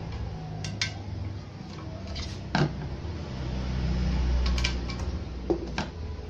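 A screwdriver clicking and knocking against the back of a CRT television as its high-voltage anode cap is discharged and pulled off, with one louder knock about two and a half seconds in. A low steady rumble runs underneath and swells in the middle.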